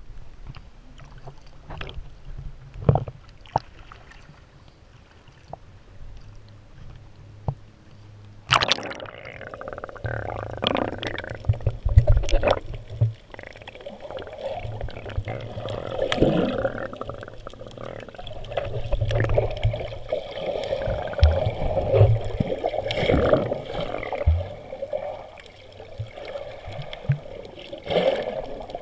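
Muffled water sloshing and gurgling around an underwater camera's housing, with scattered knocks. Quieter at first, it turns louder and busier about eight seconds in as the camera goes under water.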